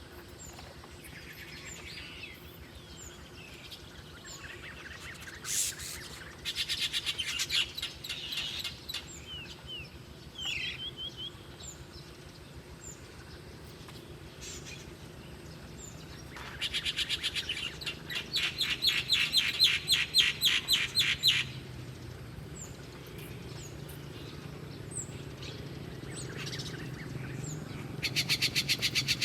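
Small bird chirping in quick runs of about five chirps a second, each run lasting a few seconds, with fainter scattered calls from other birds in between.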